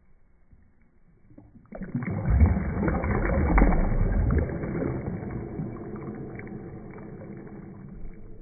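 Water splashing and churning, starting suddenly a little under two seconds in, loudest for a couple of seconds and then easing off to a steady wash.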